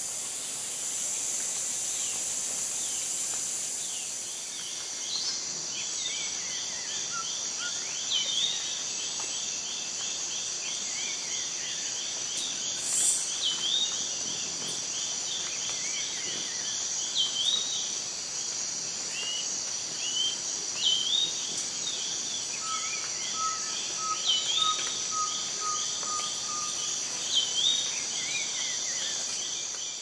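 Amazon rainforest ambience: a steady, high-pitched insect drone, with a fast ticking series and short, repeated falling bird calls over it. A brief string of lower, even notes comes in about three-quarters of the way through.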